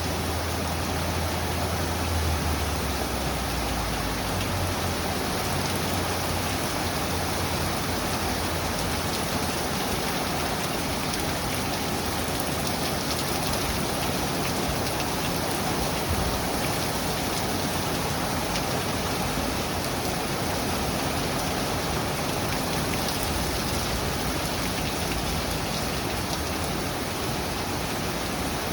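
Steady rain falling, an even hiss with scattered drop ticks. A low rumble underneath fades out about four seconds in.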